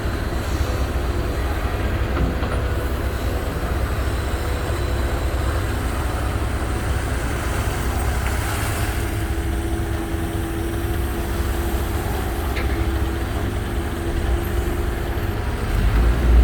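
Excavator's diesel engine and hydraulics running steadily while dredging, a continuous low rumble. A steady higher hum joins for several seconds in the middle.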